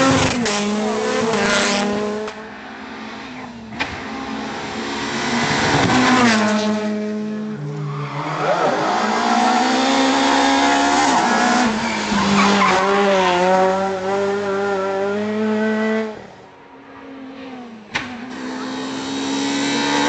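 Renault Clio R3 rally cars, each with a 2.0-litre four-cylinder engine, passing one after another at racing pace. Each engine revs up and down hard through the gears as the car brakes into and accelerates out of the corners.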